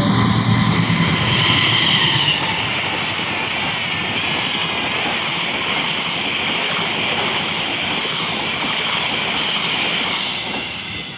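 A train passing at close range: a loud, steady rushing noise of the carriages going by, easing off slightly near the end.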